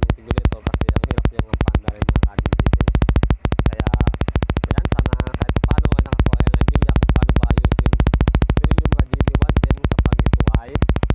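Suzuki GD110's single-cylinder four-stroke engine running close up, its exhaust firing as a rapid, even pulse of about a dozen beats a second, briefly dipping a few times. It runs steadily with its new voltage regulator fitted.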